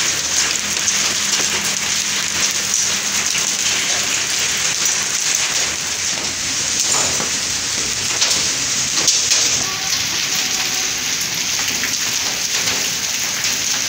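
Small hailstones mixed with rain pelting wet concrete ground: a steady, dense patter of countless tiny ticks.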